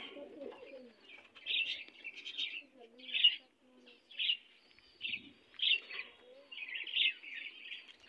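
Lovebirds chirping: a string of short, high chirps, roughly one a second.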